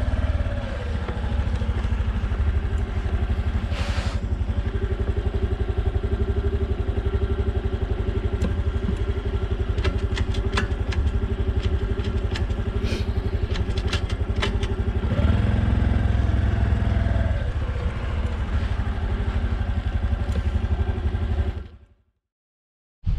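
Honda CT125 Hunter Cub's single-cylinder engine running at low speed with a steady beat, revving up briefly about fifteen seconds in, with scattered light clicks and clatter. The sound fades out near the end.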